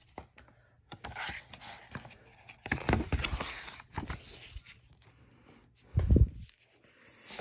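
A page of a picture book being turned by hand: paper rustling and scraping with small clicks for a few seconds, then a soft low thump about six seconds in.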